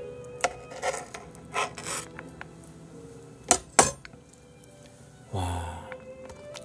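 Knife and fork cutting through a raw salmon fillet on a plate: several short scrapes of the knife in the first two seconds, then two sharp clicks about three and a half seconds in. A brief louder muffled burst follows about five seconds in, over soft background music.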